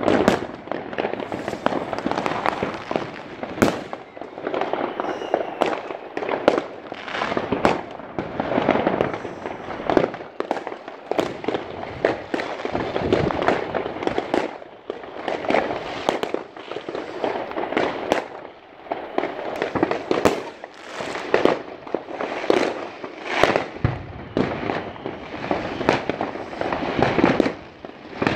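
Many fireworks and firecrackers going off at once in all directions: a continuous crackle with frequent sharp bangs, often several a second.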